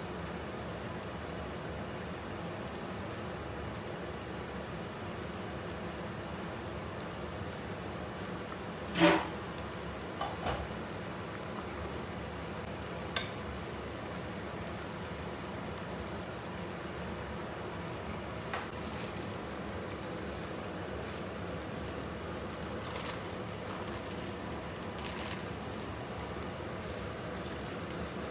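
Pot of sea bream soup at a steady rolling boil, a continuous bubbling hiss. The lid and a metal spoon clink against the pot a few times, loudest about nine seconds in, with a sharp click a few seconds later.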